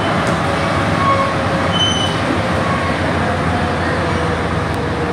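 Alstom NS-93 rubber-tyred metro train running at speed, heard from inside the driver's cab: a steady rolling and running noise with faint whining tones.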